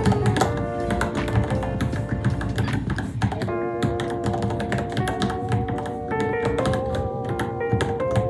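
Typing on a Varmilo Minilo mechanical keyboard: a fast, irregular run of key clicks. Background music with a melody plays at the same level.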